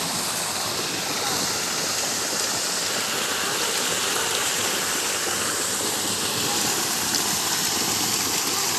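Steady rush of water pouring from a rock waterfall and splashing into a spring-fed swimming pool.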